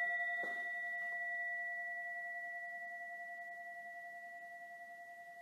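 A struck singing bowl ringing out and slowly fading, a low and a higher tone held together with a slight pulsing wobble.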